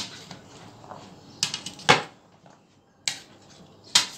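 Two white serving spoons tossing chickpeas and diced boiled potatoes in a large bowl. The spoons knock against the bowl in about five sharp clacks, with a soft rustle of the mixture in between.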